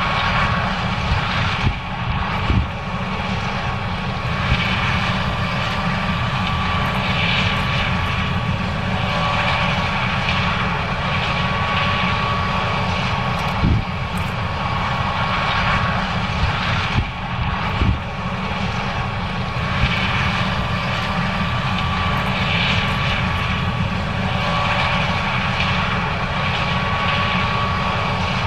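John Deere S670 combine running steadily while harvesting corn: a continuous engine and machinery drone with a thin steady whine over it. A few short dull thumps break through now and then.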